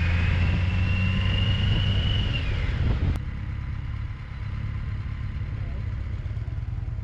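Touring motorcycle engine running at low speed, a steady deep rumble with a high whine that rises slightly and then falls away. About three seconds in, the rumble drops to a quieter, lower engine note.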